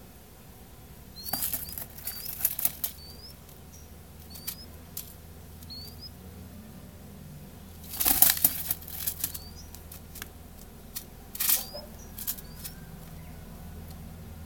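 A ground dove (rolinha) flapping and scuffling its wings against newspaper in noisy bursts about a second in, at around eight seconds and again near eleven and a half seconds, with scattered sharp taps as it pecks at cracked corn on the paper. Short high rising chirps recur through the first half and near the bursts.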